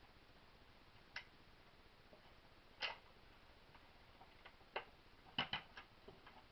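Scattered sharp clicks and taps of small metal parts and tools being handled while reassembling a Winchester 1977XS air pistol, about half a dozen in all, with the loudest a quick pair about two thirds in, over faint hiss.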